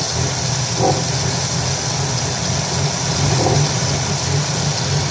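1989 Jeep Wrangler's carbureted 4.2-litre straight-six idling steadily just after a cold start, on the choke. The owner thinks the electric choke holds the choke plate too far closed, making the engine run rich.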